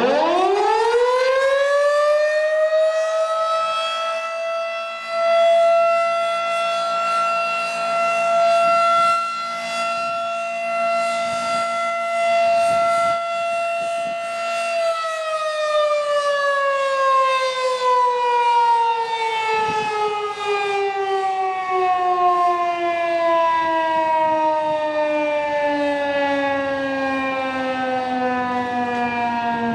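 Federal Signal 2001-SRN rotating outdoor warning siren sounding a test. It winds up fast to full pitch in about two seconds and holds one loud steady tone for about twelve seconds. Then it cuts power and winds down in a long, slowly falling tone that is still sounding at the end.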